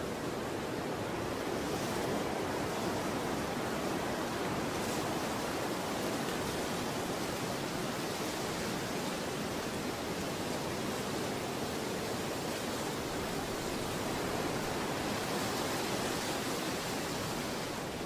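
Steady, even rush of falling water, with no breaks, drops or rumbles.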